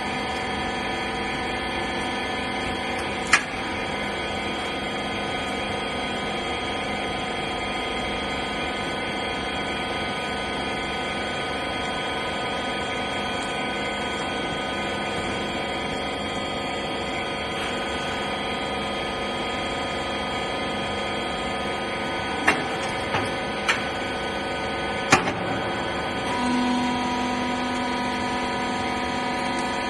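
Wiper rag baling machine running with a steady machine hum made of several steady tones, broken by a few sharp clicks. About 26 seconds in, a new steady tone joins the hum.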